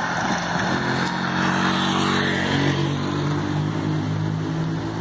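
Motor vehicle engine running close by, a steady hum, with a hiss over the first couple of seconds.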